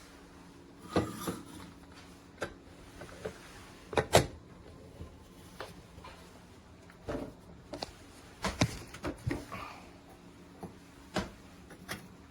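Light knocks and clatter of things being handled and set down, about a dozen scattered sharp sounds, the loudest pair about four seconds in.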